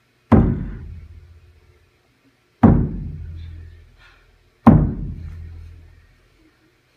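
Three loud, deep percussion strikes about two seconds apart, each ringing and fading away over a second or so.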